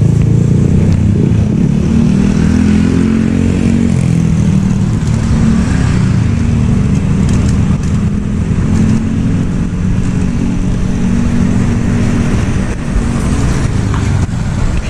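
Motorcycle and car traffic passing, with a steady, loud low engine rumble.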